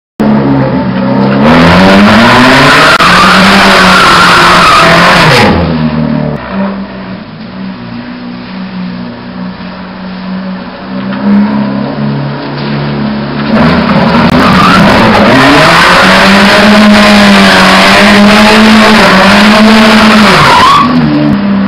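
A car engine revving hard with the pitch rising and falling as the car slides on wet pavement, loud for the first few seconds, running lower and steadier through the middle, then revving loud again from about two-thirds of the way in.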